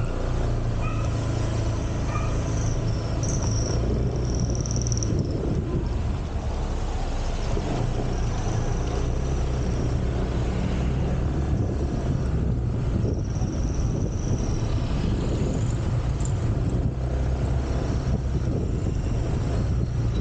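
Motorcycle engine running steadily as the bike moves from a crawl up to road speed, with a constant low drone and road and wind noise.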